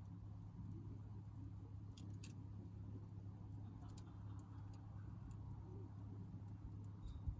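Small wood campfire crackling faintly, with a few scattered sharp pops and snaps; the loudest pop comes near the end. A steady low hum runs underneath.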